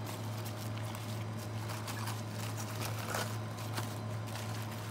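Crisp napa cabbage leaves being snapped and peeled off the head by gloved hands, heard as faint scattered rustles and snaps over a steady low hum.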